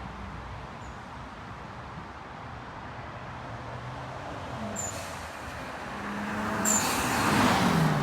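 A car's engine and road noise run steadily, swelling louder about six seconds in as a low tone falls in pitch, then easing off near the end.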